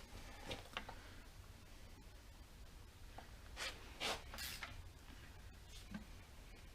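Faint scrapes and light clicks of tools and metal parts being handled on an engine, a few short ones spread out and a stronger pair of scrapes about four seconds in.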